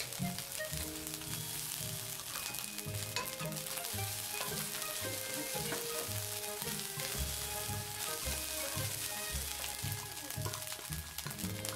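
Rice sizzling as it is stir-fried in a hot nonstick frying pan, scraped and turned with a wooden spatula while it toasts crisp. Background music with a steady beat plays over it.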